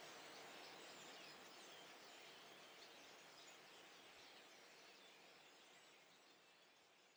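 Faint chatter of a flock of common starlings, many small chirps and whistles over a low outdoor hiss, fading out gradually toward the end.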